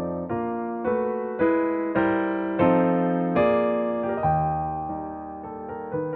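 Background music: piano, or electric piano, playing slow chords that strike and fade about every half second.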